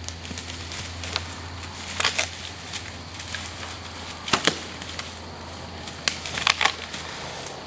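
Short crunching steps in dry leaf litter, most likely a whitetail deer walking: a few crackling bursts spaced a couple of seconds apart.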